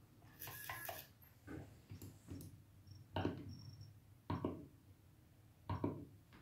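Jeti DS-24 transmitter's buttons clicking while its menus are stepped through: several separate sharp clicks, three of them loud, with a couple of short high beeps. A brief rustle of handling comes first.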